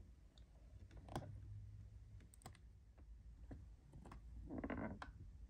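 Faint plastic clicks and taps as a fingertip handles and pulls open the door of a miniature toy fridge, with a short scraping rub near the end.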